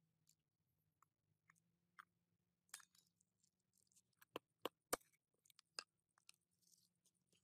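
A mini dirt bike wheel and hand tools being handled: scattered light clicks, then a few sharp knocks about four to five seconds in as the wheel is lifted and turned over.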